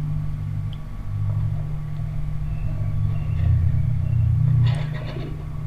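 Steady low hum with a deeper rumble underneath that swells and fades.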